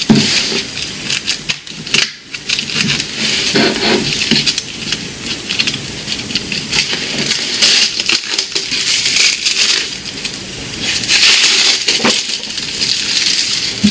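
Plastic wrapping crinkling and rustling as it is handled and pulled off sheets of laser-cut plywood model-kit parts. A few dull wooden knocks from the boards come near the start, about four seconds in, and near the end.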